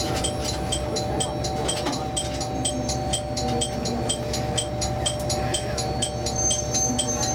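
Diesel railcar's engine idling while the train stands at a station, a steady low rumble with a faint, even ticking about three times a second.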